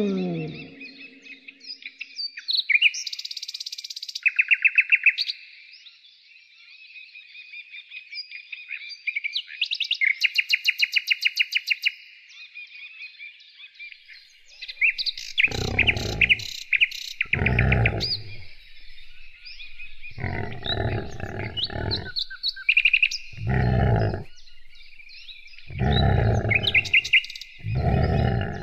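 Brown bear growling: a series of low, rough growls about a second long, repeated every couple of seconds, beginning about halfway through. Before and under them, birds chirp and give rapid high trills.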